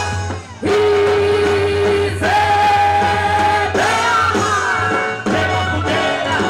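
Upbeat festa junina band music in forró style, with long held melody notes over a steady beat. The music drops out briefly about half a second in, then carries on.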